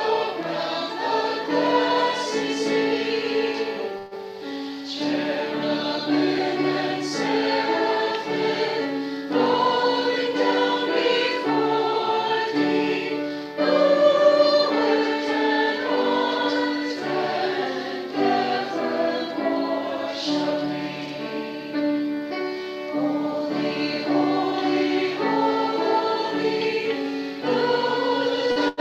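Church congregation singing a hymn together, phrase by phrase, with short breaths between lines about four and thirteen seconds in.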